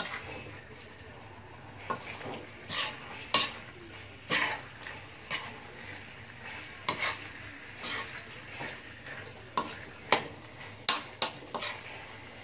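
Metal spatula scraping and knocking against a wok as spice-coated chicken pieces are stirred, in irregular strokes about once a second. A low sizzle of the chicken frying in its spice paste runs underneath.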